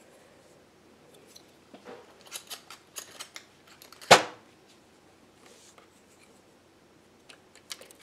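Light clicks and taps of knitting machine needles and latches as the loops of a cast-on rag are hooked onto them one by one, with one sharp click about four seconds in.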